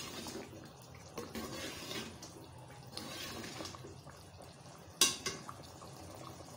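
Metal ladle stirring simmering chana dal in a pot, the liquid sloshing with light scrapes and small clicks. There is one sharp metal clack about five seconds in, then a smaller one.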